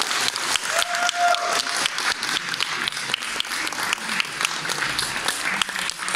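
Audience applauding, a dense patter of many hands clapping, with a short held cheer from one voice about a second in.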